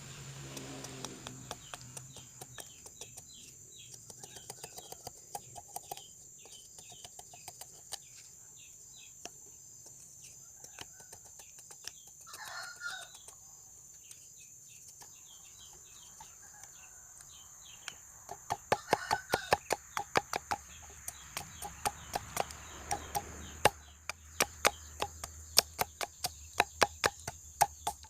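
Chickens clucking, with a steady faint high whine behind. In the last third comes a run of sharp knocks, about four a second, which are the loudest sounds.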